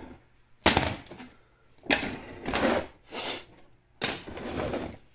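Plastic battery-cell holder plates handled on a wooden workbench: three sharp clacks as they are set down, each followed by a short rattling scrape.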